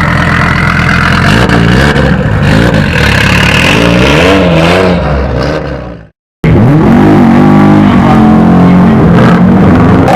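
Rally car engine revving hard, its pitch rising and falling again and again. About six seconds in the sound fades and drops out for a moment, then an engine resumes at full level, still revving up and down.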